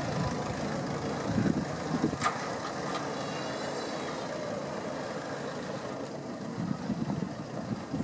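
City street traffic noise with a vehicle engine running, and a sharp click about two seconds in.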